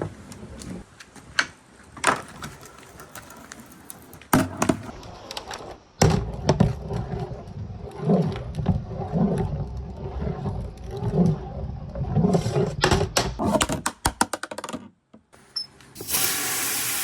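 Ball rolling through a handmade marble run of wooden blocks and orange plastic rain-gutter slopes, clicking and knocking as it drops between pieces. Partway through it settles into a rumbling roll that pulses about twice a second as it circles the orange circular slope, then speeds into a quick rattle of clicks before stopping. A steady hiss starts near the end.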